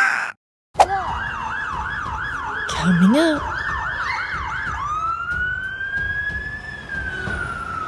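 Electronic emergency siren: a fast warbling yelp for a few seconds, then a long wail that rises and slowly falls.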